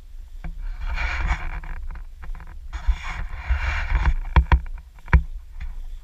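Handling and air noise on a body-worn action camera as its wearer moves through a field: two long rushes of noise, then a few sharp knocks near the end, over a constant low rumble.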